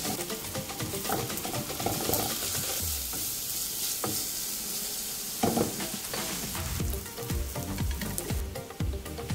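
Sliced red onions frying in a pan with a steady sizzle, stirred with a wooden spoon.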